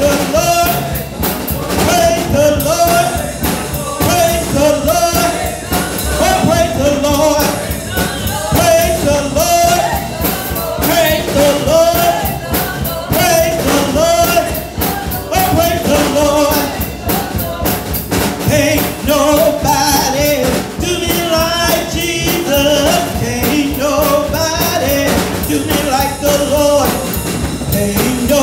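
A woman singing a gospel song into a microphone, with instrumental accompaniment and a steady drum beat.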